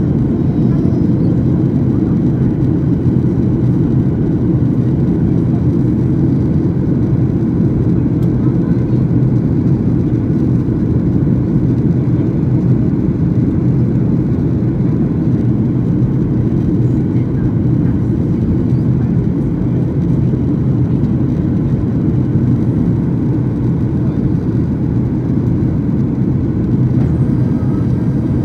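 Steady cabin drone of a Boeing 737-800 on approach, heard from a window seat inside the cabin: the CFM56 engines and the airflow over the fuselage make an even, low rumble that does not change.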